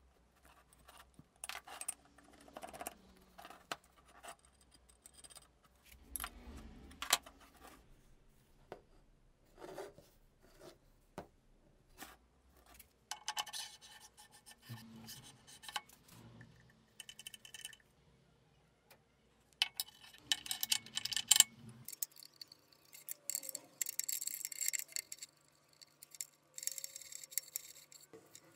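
Metal drill-press parts being handled and fitted by hand: scattered clicks and light metal knocks, then stretches of metal sliding and scraping as the handwheel shaft and its gear are worked into the gearbox housing.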